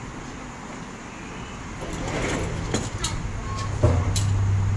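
A low, steady vehicle engine hum that grows louder in the second half. Over it come a few sharp wooden knocks and taps as the plywood sheet and lumber are handled, the loudest about four seconds in.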